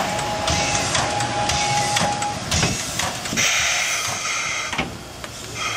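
C62 steam locomotive moving slowly, with rhythmic knocks about twice a second and a steady high squeal that stops about two and a half seconds in. A burst of steam hissing follows in the second half.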